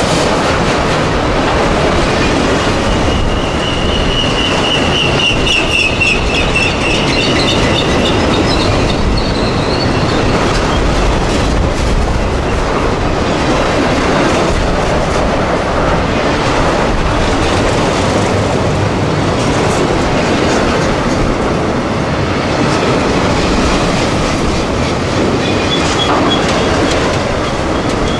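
Freight train cars rolling steadily past, with the clickety-clack of wheels over the rail. Wheels squeal against the rail with a high, wavering tone from a few seconds in for several seconds, and briefly again near the end.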